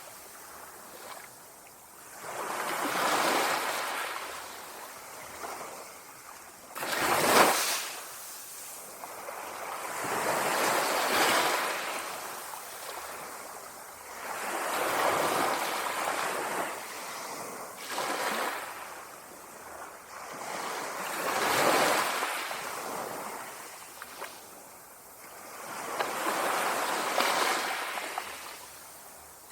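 Small sea waves lapping on the shore, a hissing wash that swells and fades roughly every three to four seconds, with one sharper splash about seven seconds in.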